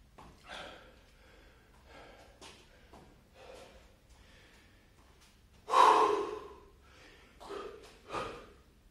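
A man breathing hard and gasping from exertion, in a series of separate heavy breaths. One loud gasp comes about six seconds in, followed by two more sharp breaths near the end.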